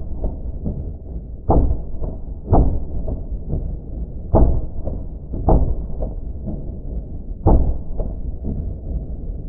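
AR-15 rifle shots, fired with a Franklin Armory Gen 3 binary trigger that fires once on the pull and once on the release. The shots are heard as muffled, dull thumps: five loud ones spaced one to two seconds apart, each followed a fraction of a second later by a fainter report.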